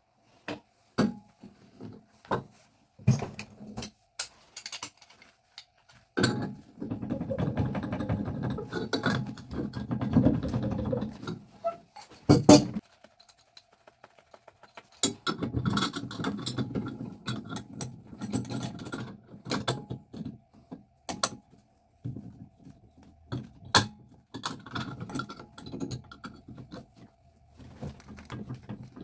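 Metal clinks and sharp clicks with stretches of scraping and rattling, as tools and metal faucet parts are handled during a tub faucet rebuild.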